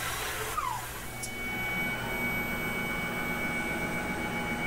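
Tormach PCNC 1100 CNC mill cutting aluminium with an end mill for the first half second, then a short falling whine and a steady machine hum and whine made of several level tones.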